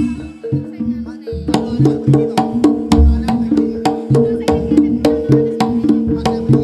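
Live jaranan ensemble music: sharp percussion strikes at about four a second over steady pitched tones, with deep low hits. The playing thins out briefly and picks up again about one and a half seconds in.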